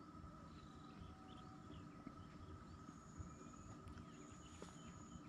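Faint outdoor ambience: insects trilling in high, repeated bursts over a steady faint hum, a few small bird chirps, and a low rumble of wind.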